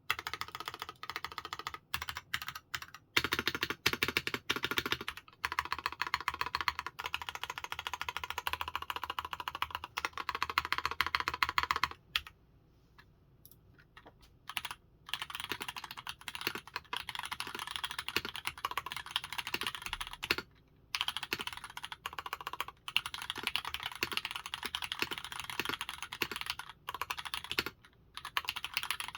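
Fast, continuous typing on an OTD 356 Mini 60% custom keyboard with Cherry MX Black linear switches (70 g springs), a full aluminium plate, GMK Dolch keycaps and memory-foam damping. The typing stops for about three seconds just under halfway through, and briefly again a little later.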